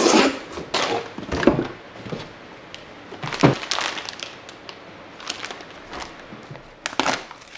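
A cardboard shipping box being torn open, with a few sharp rips and thumps of tape and flaps. Then a plastic-bagged set of bottles is pulled out and handled, the bag rustling.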